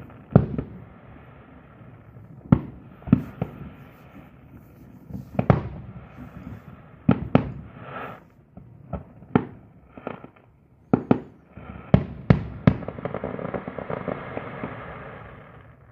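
Aerial fireworks shells bursting: about fifteen sharp booms at irregular intervals, some in quick pairs, each with a short echoing tail. Near the end comes a few seconds of dense crackling.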